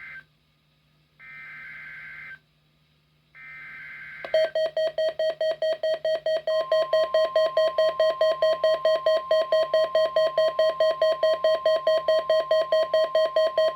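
NOAA Weather Radio SAME digital header, a harsh data screech sent in short bursts: the end of one and two more, about a second each, in the first four seconds. Then the Midland WR-300 weather radio's alert sounds: a loud pulsing beep, about four to five beeps a second. From about six seconds in it is joined by a steady single warning tone, marking a Required Weekly Test alert.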